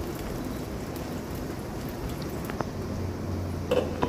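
Chilla batter sizzling in oil and butter in a nonstick kadhai: a steady crackling sizzle with a few faint ticks, and a short clatter near the end.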